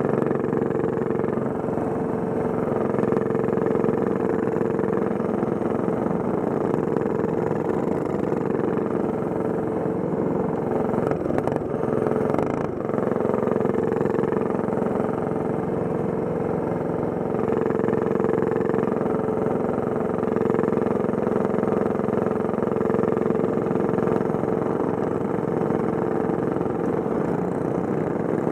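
Go-kart engine running steadily at speed, heard close up from onboard the kart, its note holding a fairly even pitch. A few brief knocks sound about twelve seconds in.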